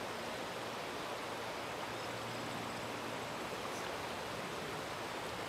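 Steady rushing of a river running high and swollen with floodwater.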